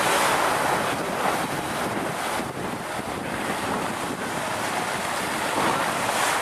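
Steady wind noise on the microphone over rushing sea water along the hull of a boat underway.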